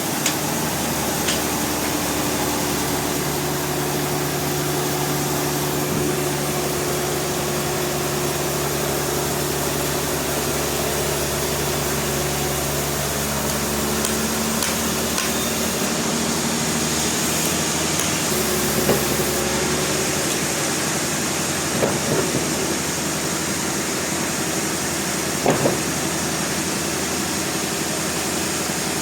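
Sawmill machinery running steadily: a constant motor hum under a hiss, with a few sharp knocks in the second half.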